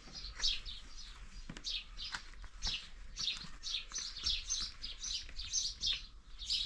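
Many small birds chirping together: a dense, continuous chatter of short, mostly falling chirps, several a second and overlapping.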